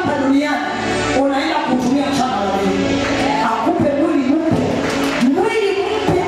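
Gospel singing amplified over a church sound system: a woman sings into a microphone and other voices join in, with held, sliding notes and no break.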